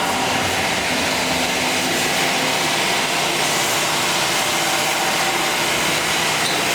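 Pipe-cutting saw machine running steadily and cutting through metal exhaust pipe, a continuous even grinding noise.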